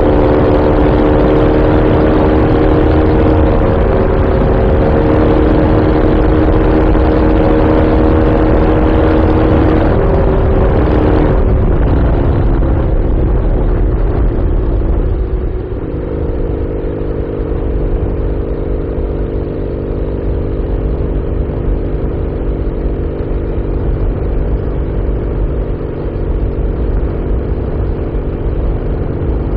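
Norton Commando's air-cooled parallel-twin engine running steadily while under way, with wind rush. About eleven seconds in the engine note breaks and drops, then settles into a steady, slightly quieter pitch.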